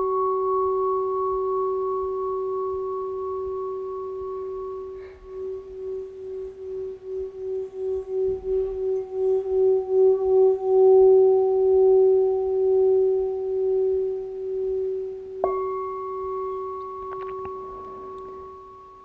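Metal singing bowl ringing with a low steady tone and a few higher overtones after a strike. About five seconds in, the stick is run around the rim: the tone swells with a pulsing wobble, peaks, then fades. Near the end the bowl is struck again and rings on, dying away.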